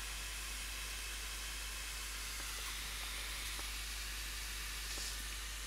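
Steady low hiss of room tone and recording noise, with a few faint light ticks and taps from hands pressing on a plastic glasses case.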